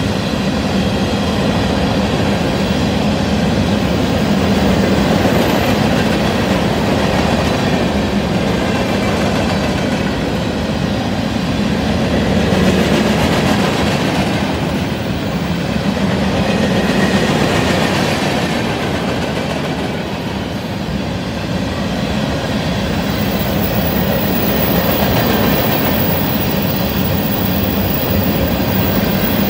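Loaded cement covered hopper cars rolling past on steel wheels, a steady continuous rumble and rattle of wheels on rail.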